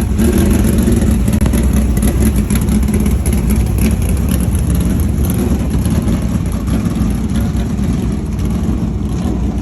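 Race car engines running loud and steady as a low, dense drone.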